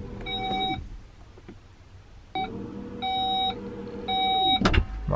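Skoda Karoq's electric tailgate working from its dashboard key: the tailgate motor hums while the warning beeper gives short beeps about once a second. The motor stops about a second in, starts again halfway through and winds down, followed by a sharp thump near the end.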